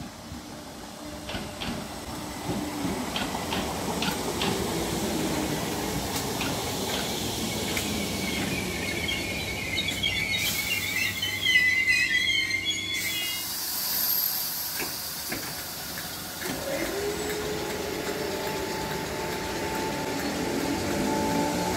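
Merseyrail electric multiple unit running into the station with a rising rumble, its brakes squealing high-pitched for a few seconds near the middle. From about three-quarters of the way through, a traction motor whine climbs steadily in pitch as a train accelerates away.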